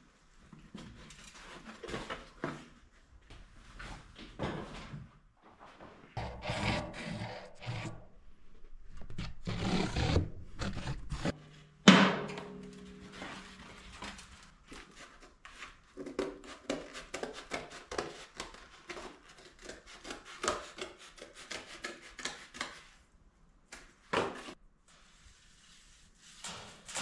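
Sheet steel being handled and fitted by hand: irregular rubbing and scraping, with one sharp metal clang about twelve seconds in that rings on briefly, then a run of quick clicks and taps.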